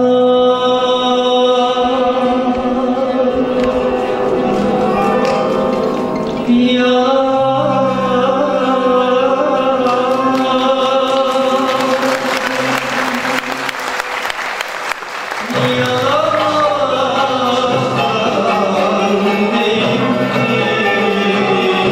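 Turkish classical music ensemble of oud, kanun, violin and frame drum playing a melody in makam Hicaz with long held notes. About two-thirds of the way through, a noisy hissing stretch lasts a few seconds. After it, a solo melody with wavering, ornamented held notes comes in.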